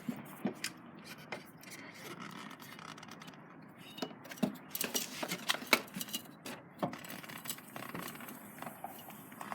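Rubber scraping and rubbing against metal, with irregular sharp knocks and creaks, as a deflated ATC tire is rotated under a trailer hitch to break its bead loose from the rim. The knocks come thickest about four to seven seconds in.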